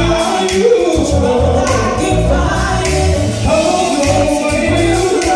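R&B song performed live: a man singing over a backing track with a heavy, pulsing bass beat.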